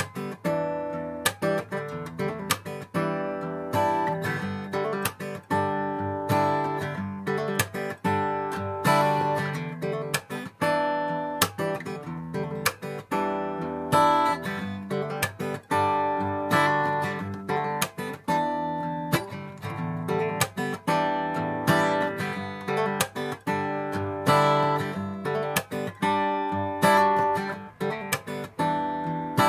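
1975 black-label Yamaha FG-150F steel-string acoustic guitar being played: chords and notes sounded in a steady run of strums and plucks.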